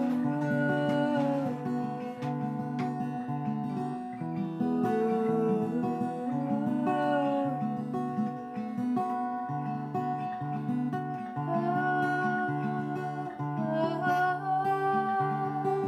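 Acoustic guitar being strummed and plucked slowly, with chords and single notes left to ring on.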